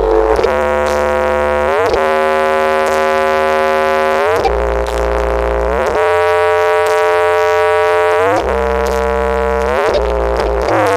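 Loud music played through a large horeg sound system with double subwoofers: held synthesizer chords over a deep bass note, changing about every two seconds.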